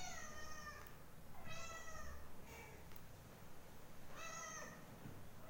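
A domestic cat meowing repeatedly: three clear meows, the first sliding down in pitch, with a short fainter call between the second and third.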